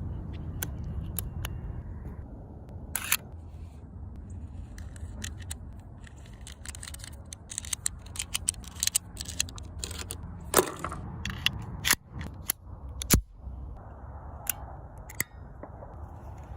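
A series of sharp mechanical clicks and clacks, typical of a Luger pistol being handled, over steady background noise. The clicks come thicker and louder in the middle, with a few harder clacks.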